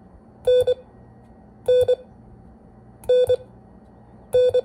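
Morse code letter N (dah-dit) sent four times as a steady mid-pitched beep tone, each a long beep followed by a short one, a little over a second apart.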